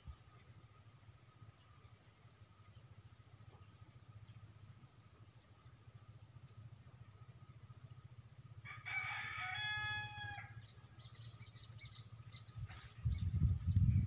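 A rooster crows once, a call of about a second and a half held on one pitch, over a steady high drone of insects. Low rumbling thumps come in near the end.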